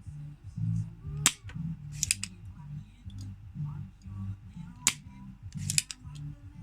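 Four sharp clicks or snaps of a hand tool on the workbench, some of them doubled, over background music with a repeating bass line.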